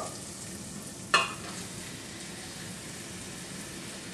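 Butter foaming and sizzling in a stainless pot as sliced mushrooms and shallots are tipped in from a bowl: a steady frying hiss, with one sharp clink about a second in.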